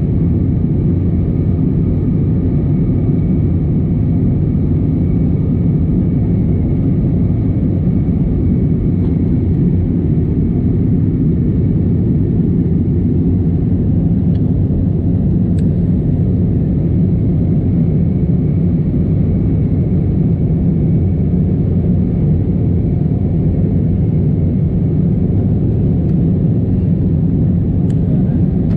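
Steady cabin noise inside a jet airliner climbing after take-off: an even, low rumble of engines and rushing air, with a faint steady whine above it.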